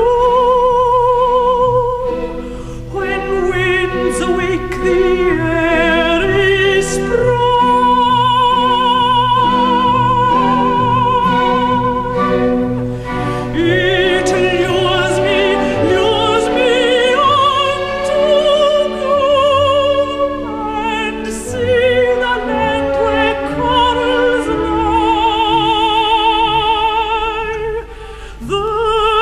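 A female classical singer, a mezzo-soprano, sings a slow art song in operatic style with a wide vibrato on the held notes, over instrumental accompaniment. There is a brief drop in level near the end before the music picks up again.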